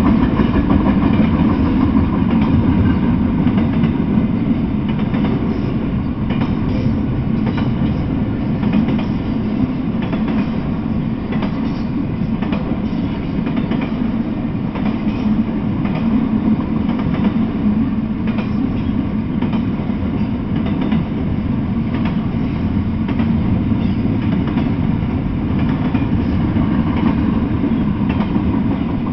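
Intermodal freight train of double-stack container well cars rolling past steadily, a continuous low rumble with the wheels clacking over the rail joints.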